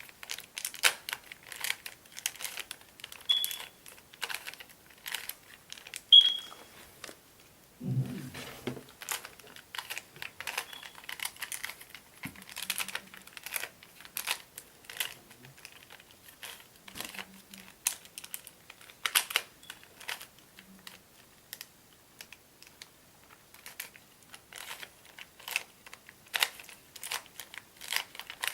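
Plastic Rubik's Cube being turned by hand: irregular, rapid clicks and rattles of the layers twisting, several a second, with now and then a brief squeak.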